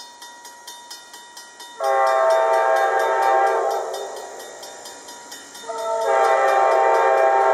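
A grade-crossing bell dings rapidly, about four to five strikes a second, as an approaching train sounds its multi-chime air horn. One long blast comes in about two seconds in and fades away. A second long blast starts near the end.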